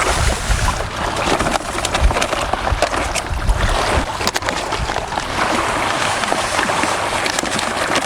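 Strong wind buffeting the microphone with a steady low rumble, over waves sloshing against the shore, with a few faint clicks.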